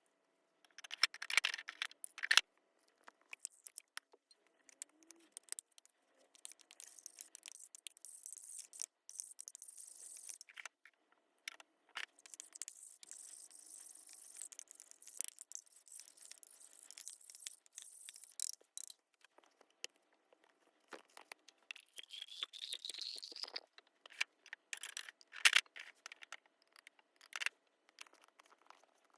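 Small objects being handled and set down: irregular clicks and taps mixed with stretches of rustling and scraping, and a short rising hiss about two-thirds of the way through.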